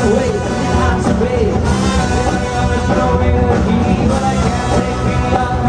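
A rock band playing live through a PA, with a singer's voice over loud bass and drums.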